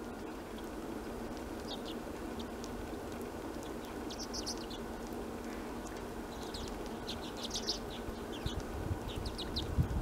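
Hornemann's Arctic Redpolls giving short, high, dry call notes in quick clusters of several notes, a few times over a few seconds, over a steady low background hiss.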